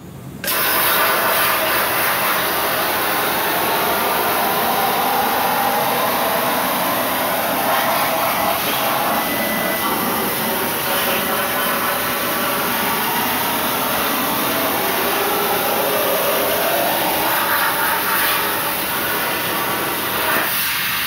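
Hypertherm Powermax 30 XP plasma cutter on a CNC plasma table cutting sheet steel: a loud, steady hiss of the arc and air, starting about half a second in and stopping near the end.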